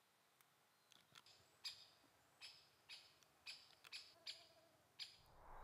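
Faint bird chirps, short and repeated about every half second, over near silence.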